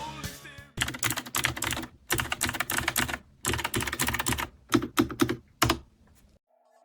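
Typing on a YUNZII QL75 typewriter-style mechanical keyboard: quick runs of key clicks in bursts, with a few louder single keystrokes near the end.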